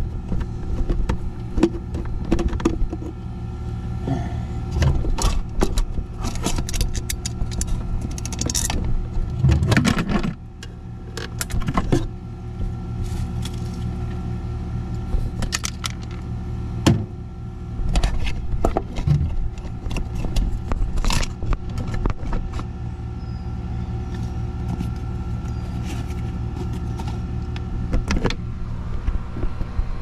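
Steady machinery hum from running air-conditioning equipment, with repeated clicks, taps and plastic-and-metal rattles as a heat pump's defrost control board and its wires are worked loose in the control panel.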